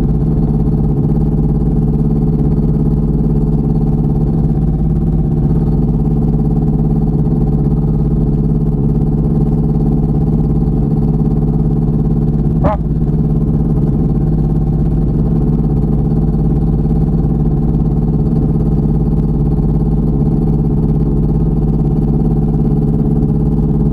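Small aircraft's piston engine idling steadily on the ground while it warms up, a loud, even drone heard through a lav mic inside the pilot's helmet. A single sharp click about halfway through.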